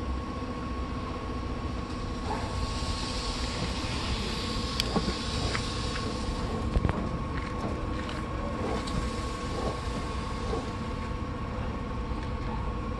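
Steady low mechanical rumble with a constant hum, and a few sharp clicks of metal parts being handled about five and seven seconds in.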